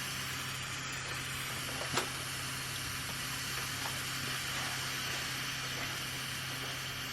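Steady hiss over a low hum, with a single knock about two seconds in.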